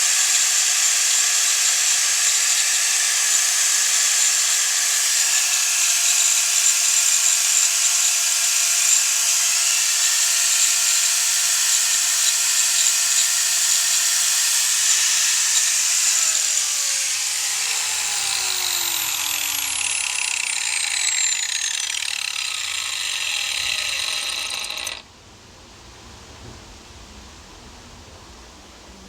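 An electric power tool's motor runs steadily at full speed with a high whine and hiss. About halfway through it is switched off and spins down, its pitch falling over several seconds before the sound cuts off abruptly.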